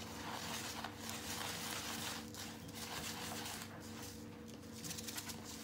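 Coconut fibre and vermiculite substrate being stirred with a thin stick in a clear plastic cup: a soft scratchy rustling that comes and goes in waves, over a steady low hum.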